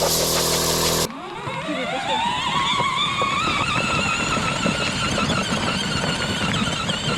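A loud hiss over a steady hum cuts off about a second in. A fan then whines as it spins up, rising in pitch for about two seconds and then holding with a slight waver.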